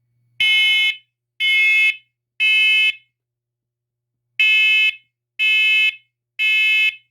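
First Alert SC7010BA smoke alarm's horn sounding loud, high-pitched beeps in the temporal-three pattern: three half-second beeps a second apart, a pause, then three more, the alarm's smoke evacuation signal during a test.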